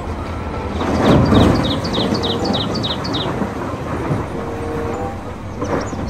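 Heavy diesel machinery running with a low rumble. A load of dark earth pours from a bucket into a steel dump-truck bed with a loud rushing surge about a second in and another near the end. A run of quick high chirps, like a bird's, is heard in the first half.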